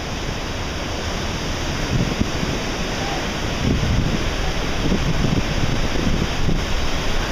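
Distant rumble of an Atlas V rocket launch reaching the listener long after liftoff: an uneven low rumble that slowly grows louder, mixed with wind on the microphone.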